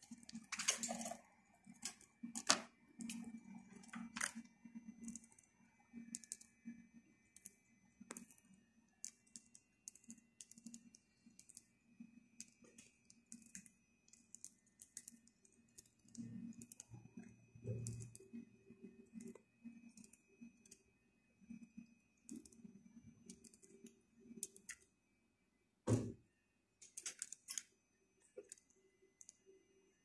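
Faint, irregular small clicks and ticks of budgerigars cracking seeds and moving about a wire cage, with one sharper knock a few seconds before the end.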